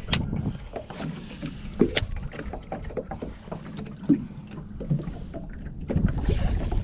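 Irregular light knocks and clicks from a small fishing boat or kayak and the gear handled in it, over a low rumble of wind on the microphone that grows louder near the end.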